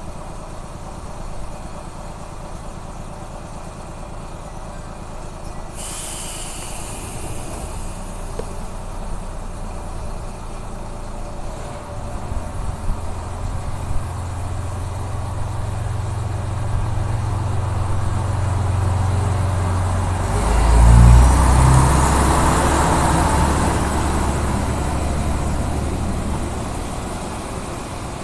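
Single-car diesel railcar idling. About six seconds in, air hisses out suddenly. Then the engine revs up, surges loudest around twenty seconds in as the railcar pulls away with its wheels running on the rails, and fades as it leaves.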